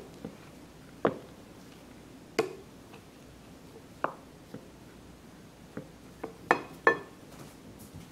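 Wooden spoon knocking against a glass mixing bowl while stirring mashed potatoes. There are about seven sharp, irregular knocks, with a quick run of them near the end.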